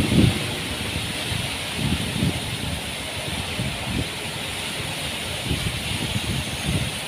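Heavy wind-driven rain hissing steadily, with strong wind gusts buffeting the microphone in uneven low rumbles.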